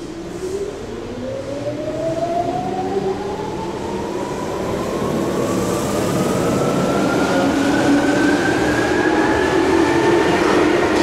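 Tokyu 8500 series electric train pulling out and accelerating, its traction motors whining in one tone that rises steadily in pitch and grows louder throughout.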